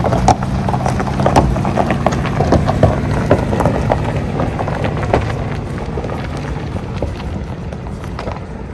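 Truck driving over a rough dirt road: a steady engine drone under many irregular knocks and rattles, fading gradually toward the end.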